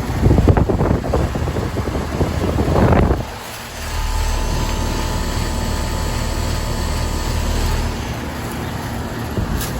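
A loud rushing noise for about three seconds, swelling just before it cuts off; then, half a second later, a 1985 Comfortmaker 1.5-ton heat pump's outdoor unit starts up, its compressor and fan settling into a steady hum.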